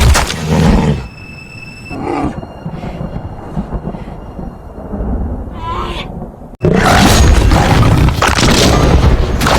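Animal roaring over dramatic film music. The soundtrack drops quieter after about a second, then comes back loud all at once about six and a half seconds in.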